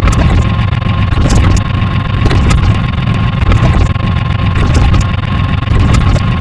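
A loud, steady engine-like rumble with a constant whining tone above it and scattered brief clicks.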